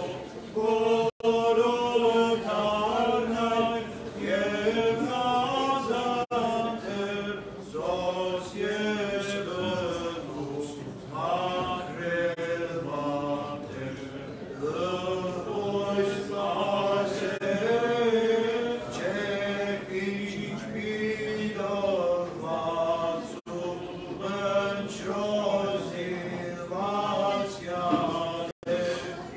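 Armenian liturgical chanting: voices singing a flowing melody over a steady held drone.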